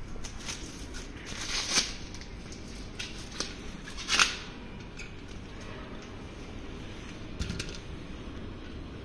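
Rearview mirrors being unwrapped and handled: two short bursts of plastic rustling, with a few light clicks and taps of the mirror stems.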